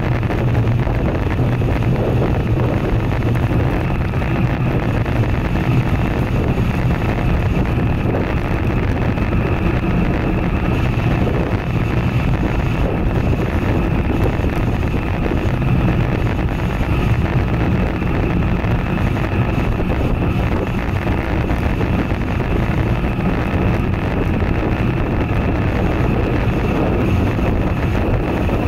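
Steady wind rushing over an action camera's microphone while riding a road bike at speed, a constant low rumble with no letup.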